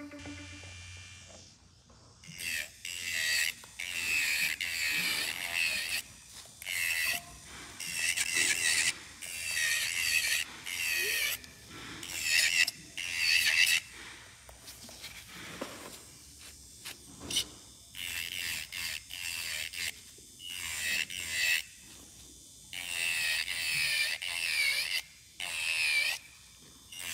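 Electric nail drill with a barrel bit filing an acrylic powder nail, in repeated bursts of about a second as the bit is pressed to the nail and lifted off, its whine wavering during each pass.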